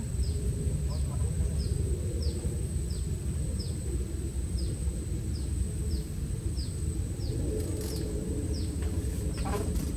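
A bird repeating a short, high, downward-sliding note about every three-quarters of a second, over a steady low rumble and a thin, constant high whine. A few clicks come near the end.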